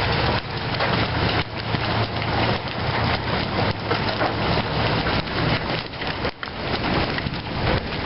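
Large hailstones, golf-ball to softball size, pelting down in a dense, continuous clatter of hard impacts mixed with rain.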